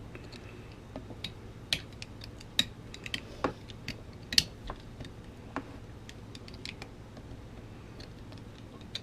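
Small multitool screwdriver tightening the pressure-switch mounting screws on a Flojet booster pump: irregular light clicks and ticks as the blade turns and reseats in the screw heads, thinning out near the end.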